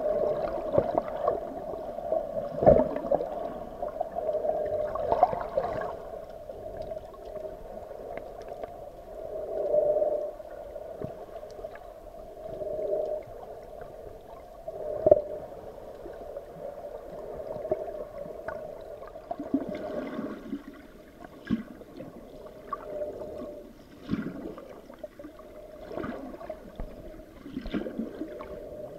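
Muffled underwater sound from a submerged camera in its housing: a steady hollow water drone that swells and fades, broken by scattered clicks and a few sharp knocks, the strongest near the start and about halfway through.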